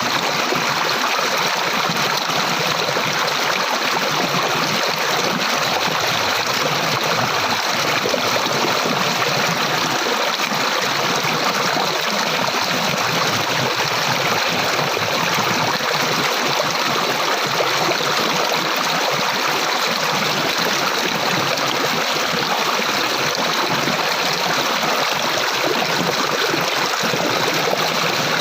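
Water flowing steadily, a constant rushing and trickling like a stream or small waterfall.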